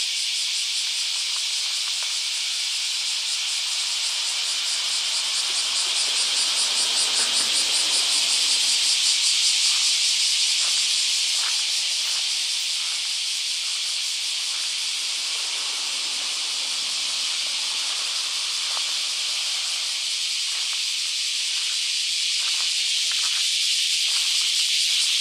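Loud, steady chorus of summer cicadas, a high shrill buzz with a fast flutter. A low rumble swells and fades about seven seconds in. Footsteps crunch on sandy gravel through the second half.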